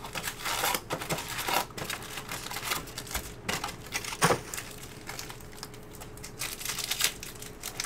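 A cardboard hobby box opened and its stack of foil-wrapped Topps Stadium Club card packs lifted out, crinkling and rustling irregularly, with one sharp knock about four seconds in.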